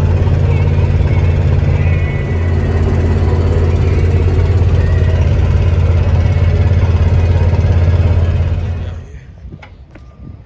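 Road and engine noise inside a vehicle's cabin at highway speed: a steady low drone with tyre and wind hiss. It drops away suddenly near the end, leaving a much quieter background with a couple of faint clicks.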